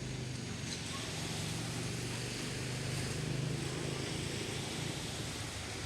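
An engine running steadily with a low hum, over a wash of wind or surf noise.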